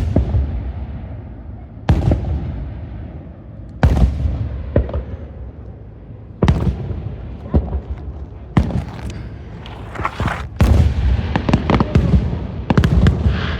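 Fireworks exploding: sharp bangs, each trailing off in a rumbling echo. They come about every two seconds at first, then come faster with crackling bursts in the second half.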